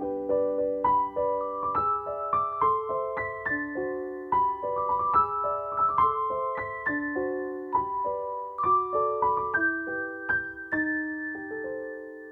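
Background piano music: a gentle melody of single struck notes over soft chords, ending on a held chord that fades away.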